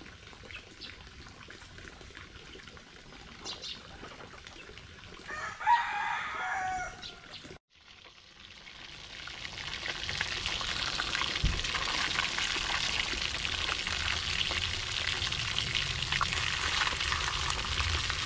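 A rooster crows once, a call of about two seconds, over faint farmyard sounds. After a sudden cut about halfway through, tilapia sizzles steadily as it fries in oil in a pan, the sizzle swelling over the first couple of seconds and then holding.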